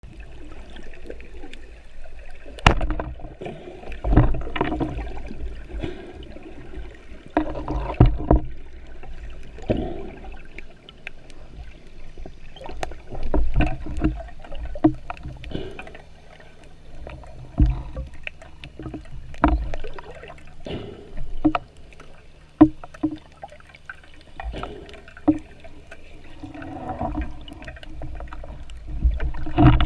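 Sea water sloshing and gurgling around a diver's camera, with irregular knocks and thumps.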